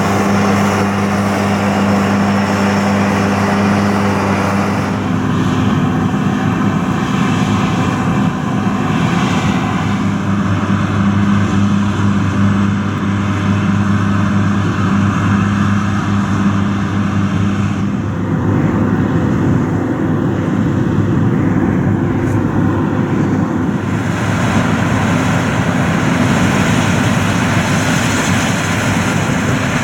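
Large diesel harvest machinery running steadily under load; the sound changes character about 5, 18 and 24 seconds in.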